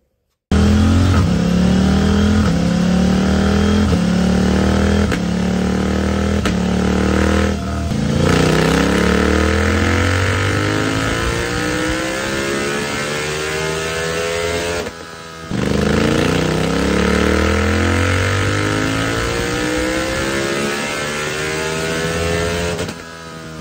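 KTM 890 Duke's parallel-twin engine running full-throttle pulls on a chassis dyno, through an MIV slip-on exhaust with its noise-reduction insert fitted and no catalytic converter. The revs climb in short repeated steps for several seconds, then two long pulls rise steadily in pitch, with the throttle closing briefly between them.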